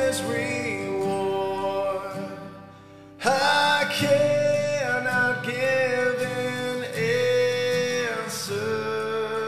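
Male voice singing a slow hymn melody in long held notes over acoustic guitar. One phrase fades out about two and a half seconds in, and a new phrase starts about a second later.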